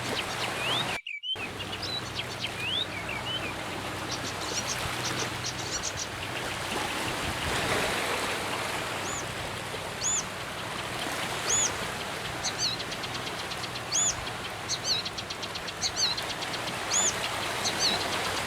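Wild birds singing over a steady background hiss: high chirps and rapid trills, and from about nine seconds in a bird repeating a short arching whistled note roughly every one to one and a half seconds. The sound drops out briefly about a second in.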